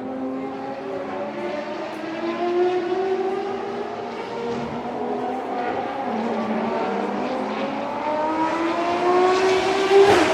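Several Ferrari FXX K track cars accelerating on the circuit, their V12 engine notes overlapping and each rising steadily in pitch, with a sharp loud crack just before the end.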